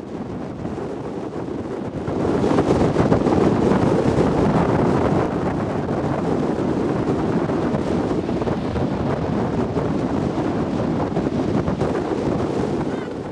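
Wind buffeting the microphone: a steady rushing, rumbling noise that gets louder about two seconds in.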